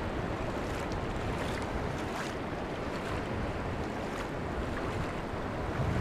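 Shallow seawater washing in over sand and rocks at the edge of the sea: a steady rush with faint fizzing and small splashes now and then.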